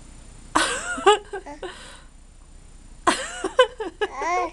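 A baby about four and a half months old vocalizing in two short bursts of high, wavering babble whose pitch bends up and down, about half a second in and again about three seconds in.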